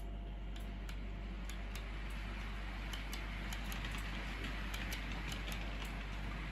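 OO gauge model train rolling past: the metal wheels of Cavalex TEA oil tanker wagons clicking irregularly on the rail joints, the clicks coming thicker as the wagons pass close, over a steady running hiss that swells in the second half.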